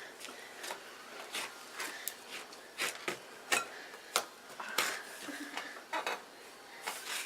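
Thick, sticky homemade slime being squeezed and pulled in the hands, giving a string of irregular short clicks and pops, roughly two a second.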